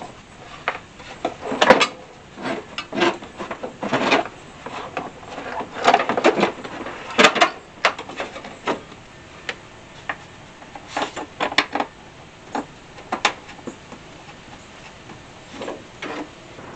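Hands handling parts and wiring at the firewall of a pickup's engine bay while reassembling the heater housing: irregular clicks, knocks and rustles.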